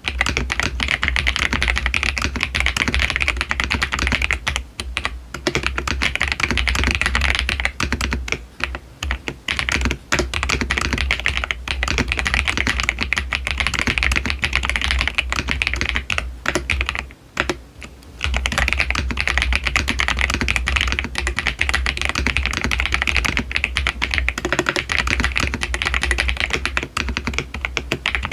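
Fast, continuous typing on a Royal Kludge RK R75 mechanical keyboard: a dense run of key clicks and keystroke thocks, broken by brief pauses a few times.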